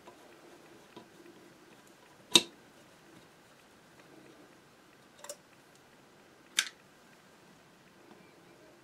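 A few short, sharp clicks of a screwdriver and small screws being worked on a Singer 192K sewing machine's stitch length regulator plate. The loudest comes about a quarter of the way in, and two more follow later.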